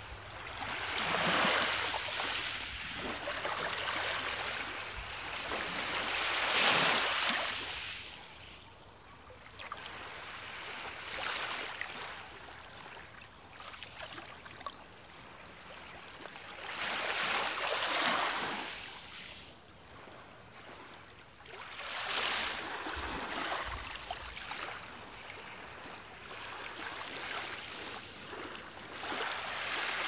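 Small lake waves washing in over a pebble shore, the rush of water over stones swelling and fading every few seconds.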